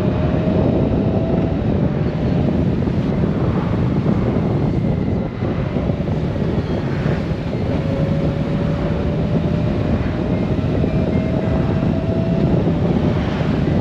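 Honda Gold Wing's flat-six engine running at road speed under steady rushing wind noise, with a faint whine that slowly rises in pitch near the start and again in the latter half.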